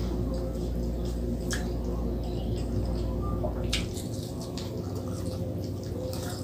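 Close-up eating sounds of fried frog: wet, squishy chewing and mouth noises with a few sharp clicks as the fried pieces are pulled apart and bitten. A low hum underneath stops about halfway through.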